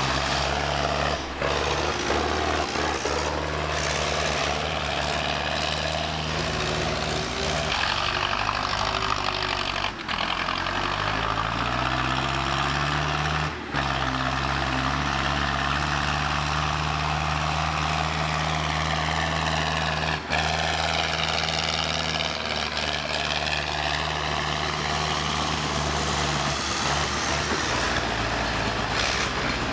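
Tractor engines running steadily, their pitch rising and falling as they rev, with a few brief abrupt breaks.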